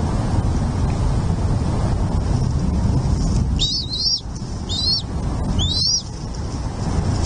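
Bald eagle calling from the nest: three short bursts of high, chittering notes a little past the middle, over a steady low wind rumble on the microphone.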